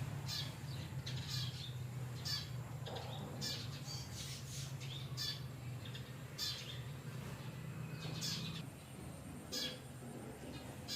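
Short high-pitched animal chirps or squeaks, repeated roughly once a second, over a steady low hum that drops away about nine seconds in.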